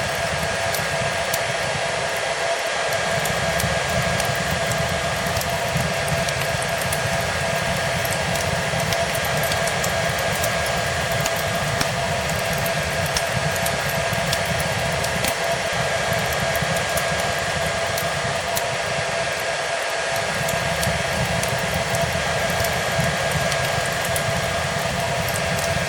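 A hair dryer runs steadily as white noise, a constant rushing hiss with a steady whine, mixed with the small scattered crackles of a wood fire. The low rumble of the dryer briefly dips out three times.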